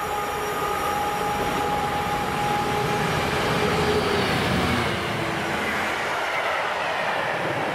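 Freightliner Class 66 diesel-electric locomotive, with its two-stroke EMD V12, running through the station at speed with container flat wagons. A steady whine fades after the first couple of seconds. The sound is loudest as the locomotive passes about four seconds in, then turns to the rolling rumble of the wagons.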